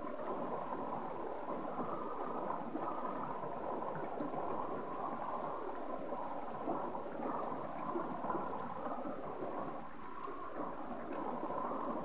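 Shallow stream running over rocks and stones, a steady babble of flowing water.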